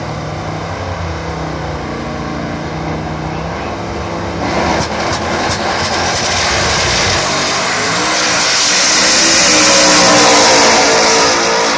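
Drag-racing street car's engine idling with a steady low rumble at the start line, then launching about four and a half seconds in with several sharp cracks. The engine runs at full throttle and grows steadily louder, loudest as the car passes close by near the end.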